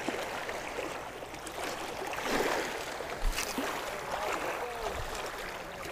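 Small waves lapping on a rocky shoreline, with a short knock about three seconds in from handling a spinning rod and reel.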